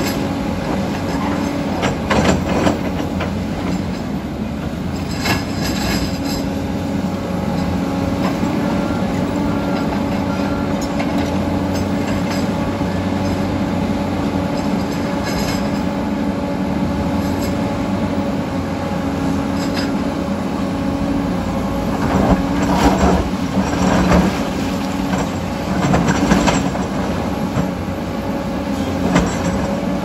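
Heavy diesel earthmoving machinery, an MST crawler excavator close by and a Komatsu D85EX bulldozer farther off, running steadily, with the clank and squeal of steel tracks and rock. Several louder clanks stand out, more of them near the end.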